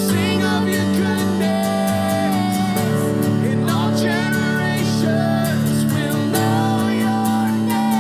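Music: a song with singing over acoustic guitar and a steady beat.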